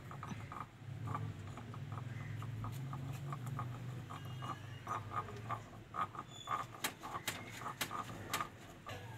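Irregular light taps and clicks, sparse at first and coming thick and fast in the second half, over a low steady hum.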